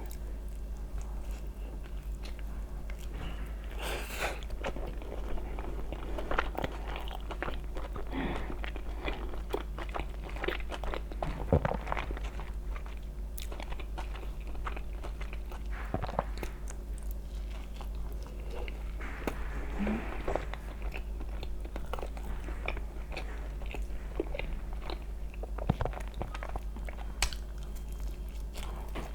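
Close-miked biting and chewing of sweet potato gold pizza: repeated crisp crunching bites of the crust and chewing.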